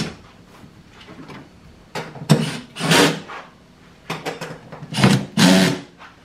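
Cordless drill-driver running in several short bursts, driving screws into plastic, with a rasping, grinding sound; the first burst comes about two seconds in.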